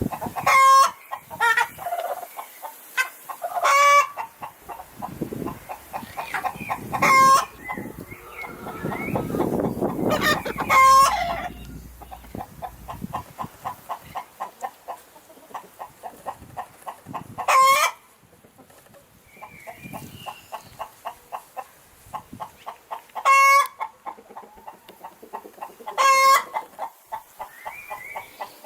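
Hens cackling: runs of quick clucks, about three to four a second, broken about seven times by a loud, sharp squawk. This is the pattern of the cackle hens give around laying an egg.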